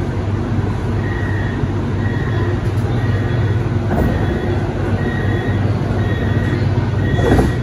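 Steady low hum of a metro train standing at the station, with a short high beep repeating about once a second. A brief louder clatter comes near the end.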